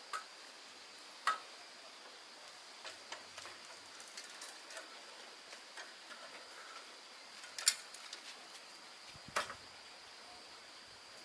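Scattered sharp clicks and knocks, the loudest about a second in, near 8 seconds and at about 9.5 seconds, with lighter ticks between them, over a faint steady high-pitched whine.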